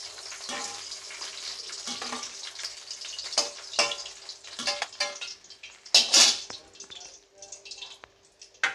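Rui fish frying in hot mustard oil in a wok, a sizzle that thins out after about five seconds. A metal spatula scrapes and clinks against the pan several times as the fried fish is lifted out, loudest about six seconds in.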